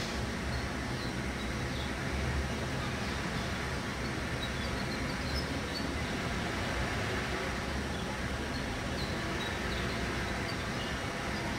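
Steady low rumble of outdoor background noise, with a few faint, short high chirps scattered through it.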